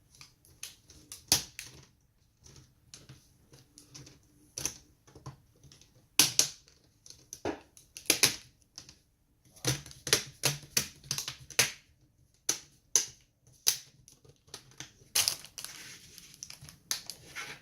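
Plastic cover of an Acer Aspire E5-575 laptop being pressed back on, its clips snapping into place one after another in irregular sharp clicks, with handling and rubbing of plastic between them.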